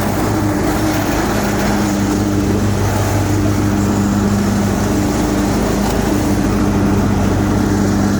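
Big Dog C142 zero-turn riding mower running steadily with its blades engaged, a constant engine hum. The mower is vibrating, which the owner puts down to either a bent drive shaft to the PTO or a worn PTO clutch coming loose.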